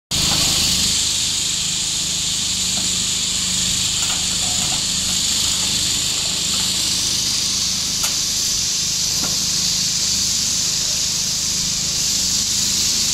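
Steady high-pitched hiss with a low hum beneath it and a few faint clicks.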